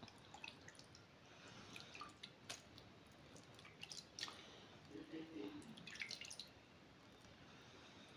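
Faint splashes and drips of water as a face is rinsed by hand to wash off a dried face mask, coming in short bunches.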